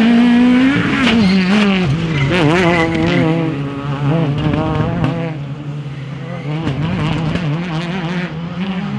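Peugeot 208 rally car's engine at high revs. The pitch drops about a second and a half in as the car slows for a tight turn, then wavers rapidly up and down with quick throttle blips while the tyres scrabble on loose gravel.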